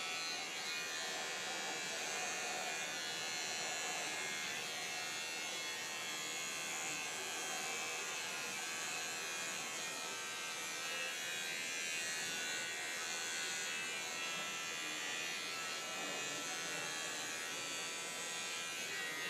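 Corded electric hair clippers running with a steady buzz as they cut through hair.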